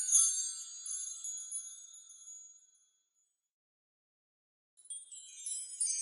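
Fairy dust magic sound effect: a high, glittering shimmer of many tiny chime-like tinkles that fades away over the first three seconds. After about two seconds of silence, a new shimmer swells in near the end.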